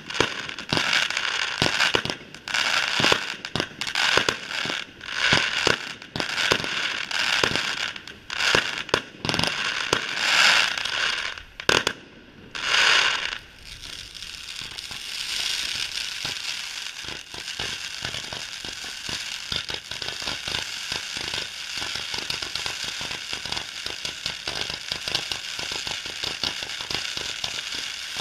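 Fireworks display: shells bursting with sharp bangs in quick succession for about the first half, then a dense, steady crackle of many small pops from crackle effects through the rest.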